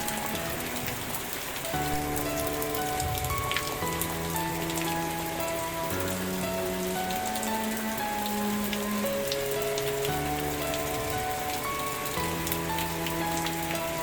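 Steady rain with scattered distinct drop hits. Under it, slow sustained music chords change about every two seconds.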